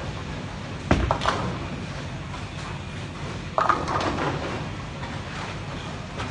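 Bowling alley during play: sharp knocks about a second in, then a clatter of bowling pins being struck about three and a half seconds in, over a steady low noise of balls rolling down the lanes.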